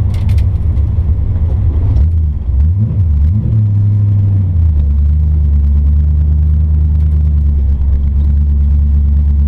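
Hot rod engine running loudly, revved up and down briefly about two to three seconds in, then settling to a steady low note.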